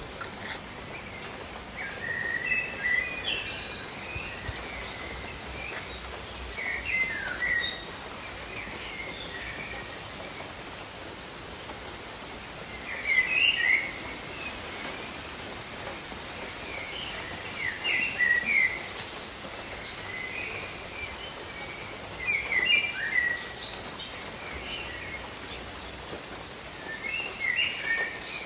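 Gentle, steady rain with a songbird singing a short chirping phrase every four to five seconds.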